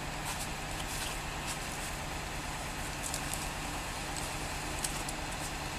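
An engine idling steadily, with scattered light clicks and crackles over it.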